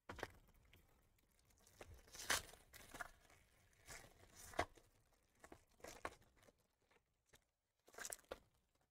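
Foil wrapper of a 2021 Bowman baseball card pack being torn open and crinkled by hand, in a series of short rips and crackles. The sharpest rips come about two and a half and four and a half seconds in, and a last cluster comes near the end.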